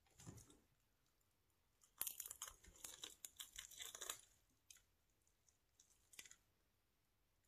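Crunching of a crispy chicken wing being bitten and chewed: a dense run of crackling crunches for about two seconds, then a few scattered chews.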